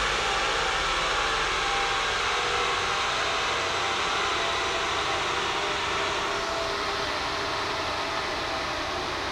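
Chassis dyno roll-out: the rolling road's large cooling fan rushing and the rollers and tyres spinning down as the car coasts in gear off the throttle, the whole slowly getting quieter with a faint hum that falls gently in pitch.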